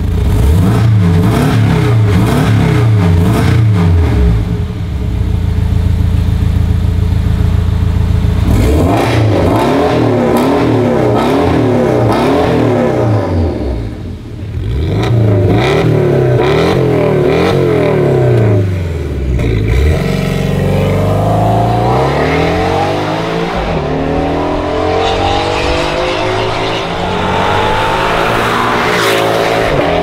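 Porsche 718 Boxster engine through a Fi Exhaust valved catback muffler and catless downpipe, revved hard again and again while standing. About two-thirds of the way through, the car accelerates away, its pitch climbing again and again through the gears.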